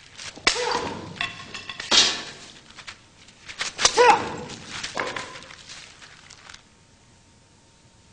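Sharp impacts of karate strikes landing in a demonstration, about four hits spread over the first five seconds, two of them with short shouts (kiai).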